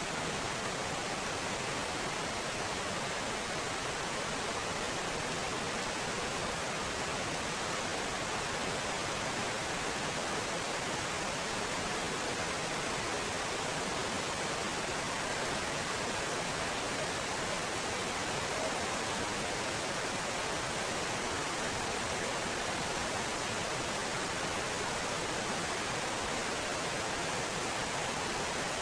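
Water of a rocky stream cascading over boulders and small waterfalls, a steady, even rush of water.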